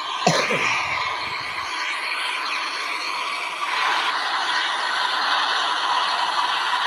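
Airbus A320's CFM56 jet engines and airframe running with a steady rushing noise as the airliner rolls out along the runway after landing. A brief sound falls steeply in pitch just after the start, and about four seconds in the noise grows louder, with a thin high whine added.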